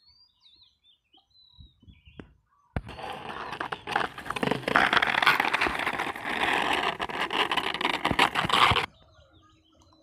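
Loud rustling and crackling right at the microphone for about six seconds, starting abruptly a few seconds in and cutting off near the end. Faint high bird chirps come before it.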